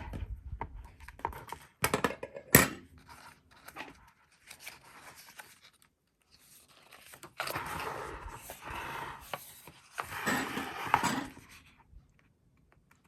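Paper being handled at close range: a few sharp taps and clicks in the first three seconds, then two longer stretches of scratchy paper noise, like paper being torn or rubbed, about seven and ten seconds in.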